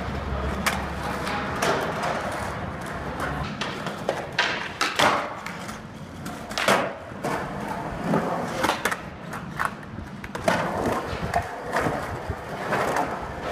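Skateboard wheels rolling on concrete, a low rumble for the first few seconds. Then a series of sharp clacks and knocks as the board strikes the ground.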